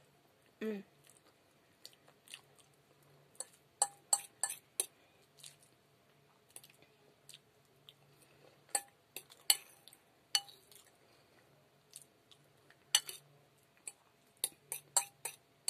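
A person chewing fried potatoes, with sharp clicks coming in clusters every few seconds.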